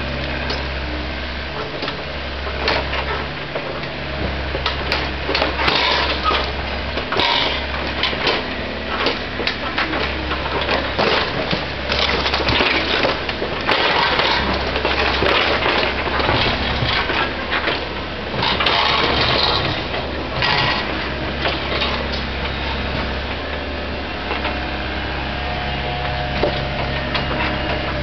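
Volvo ECR88 compact excavator's diesel engine running steadily while its bucket digs into broken concrete and brick rubble, with repeated clattering, cracking and scraping of debris.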